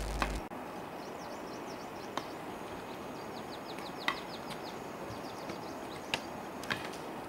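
Faint outdoor ambience with a small bird singing two short runs of quick, falling chirps, the first about a second in and the second around three to four seconds in. A few soft clicks.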